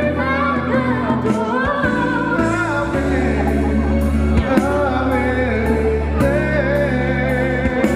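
Live group singing through microphones: voices carry a melody that bends and slides, over low bass notes held for a second or two each.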